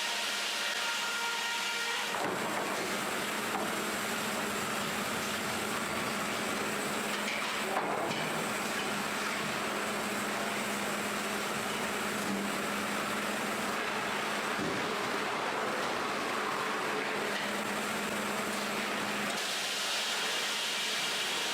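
Sawmill machinery running with a steady mechanical noise. About two seconds in a fuller, deeper sound with a steady hum joins it, and it falls away near the end.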